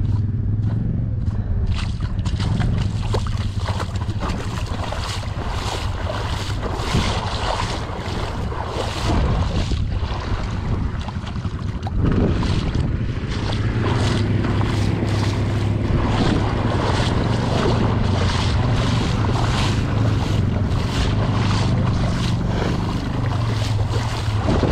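ATV engine running steadily while riding, with rushing wind noise on the microphone; the engine eases off about nine seconds in and picks up again around twelve seconds.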